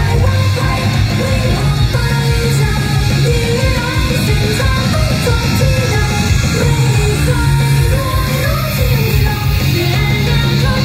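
Female idol group singing live over a loud rock-style backing track with heavy bass and guitar, heard through the venue's PA from the audience.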